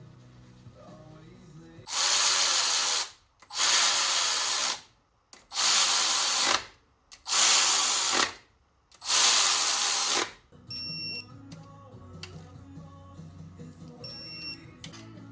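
A power tool run in five evenly spaced bursts of about a second each. Two short high beeps follow near the end, over faint background music.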